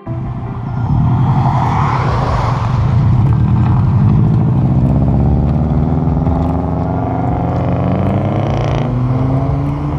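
Modified cars' engines and exhausts as they pull away and accelerate past, the engine note climbing steadily in pitch. A rush of hiss comes in the first few seconds, and the sound changes abruptly near the end.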